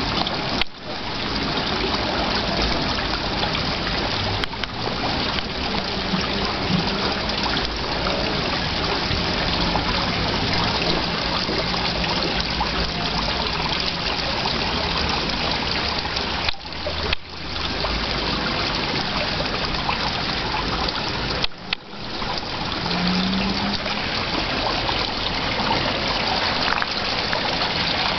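Steady trickling, running water, broken by a few brief dropouts.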